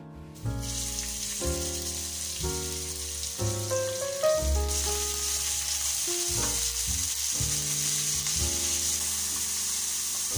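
Chopped chicken fillet frying in hot oil with garlic in a pan and being stirred with a spatula. The sizzle starts about half a second in and grows louder about halfway through. Background piano music plays over it.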